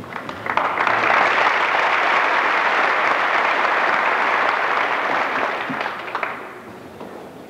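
Audience applauding: the clapping swells within the first second, holds steady, and dies away about six seconds in.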